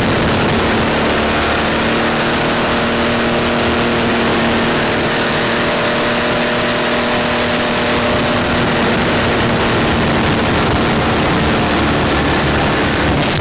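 Open-frame buggy's engine running at a fairly steady pitch while it is driven across rough paddock grass, over a constant hiss.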